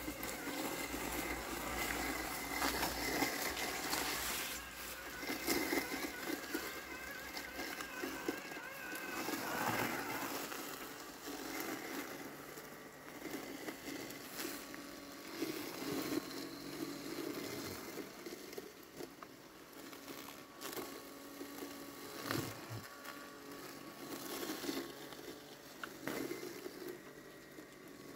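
Landxcape LX790 robotic lawn mower running, its electric motors giving a steady whine that wavers slightly in pitch, with crackling and rustling as it cuts through tall grass and weeds.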